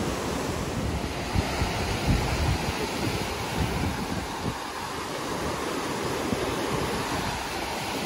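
Sea waves breaking and washing up a sandy beach in a steady surf wash, with wind buffeting the microphone in uneven low rumbles that ease off in the second half.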